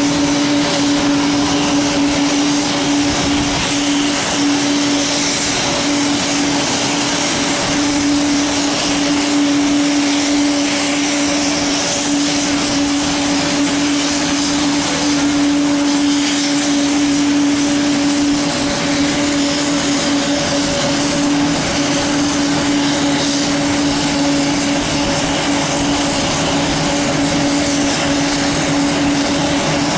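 Mitsubishi MU-2's twin turboprop engines running with propellers turning as it taxis slowly: a loud, steady engine tone over an even rush of propeller and turbine noise.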